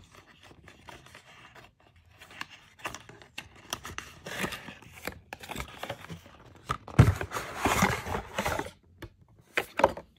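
Fenty Skin product packaging being opened by hand: a run of small clicks and scrapes, with two longer noisy stretches of tearing or rustling, the loudest about seven to nine seconds in.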